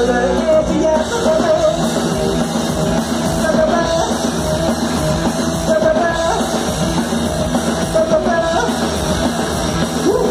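Punk rock band playing live, loud electric guitars, bass and drum kit with a sung vocal, heard from the crowd.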